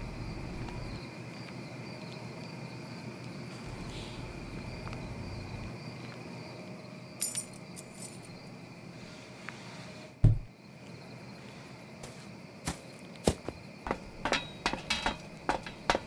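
Night ambience with a steady chirring of insects. There are two faint clinks about seven seconds in and a single low thud about ten seconds in, then footsteps on stairs, spaced at first and coming quicker near the end.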